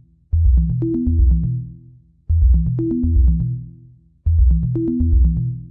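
Electronic music: a heavy bass and drum loop that repeats about every two seconds, with a brief gap before each repeat.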